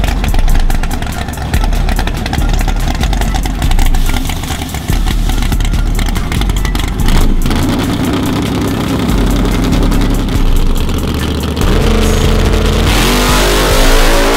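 Fox-body Mustang drag car's engine running at the start line with a choppy, lumpy idle, then steadier revs while staging, then going to full throttle for the launch about thirteen seconds in.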